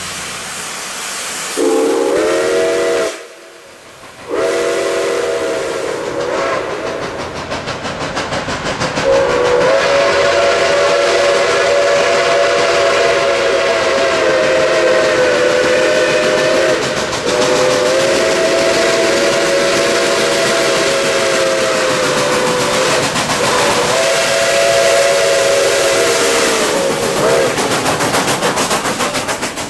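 Nickel Plate Road 765, a 2-8-4 Berkshire steam locomotive, blowing its chime whistle several notes at once in a series of blasts, the longest lasting several seconds, over a steady hiss of steam. Near the end the whistle stops and the locomotive's wheels and running gear pass with a pulsing clatter.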